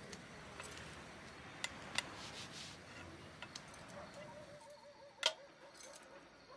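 Quiet room ambience with a few scattered light clicks and taps, the sharpest one about five seconds in.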